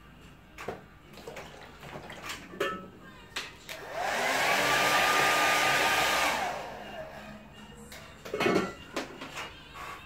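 Handheld hair dryer switched on for about three seconds to dry wet watercolour paint: a rush of air over a motor whine that rises as it starts and sinks as it stops. About two seconds later comes a short knock.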